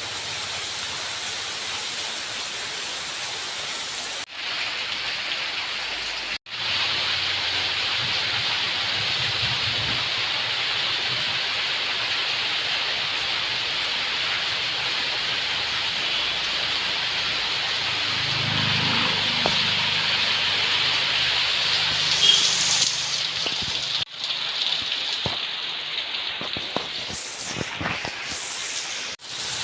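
Heavy rain falling steadily, an even hiss of rain, cut briefly a few times where clips are joined.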